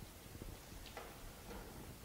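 A few faint, short clicks, about three in two seconds, from a screwdriver and screws as the monitor is fastened to its arm bracket.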